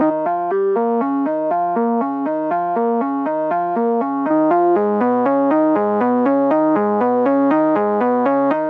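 u-he Hive software synthesizer playing a sawtooth-type preset, 'XS Brutal Saw', in a steady sequenced pattern of short repeated notes, about four a second. A little before halfway through, the pattern moves to lower notes.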